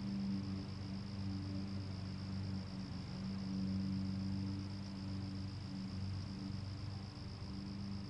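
Distant lawn mower engines running steadily, a low hum that swells a little around the middle, with a steady high insect trill over it.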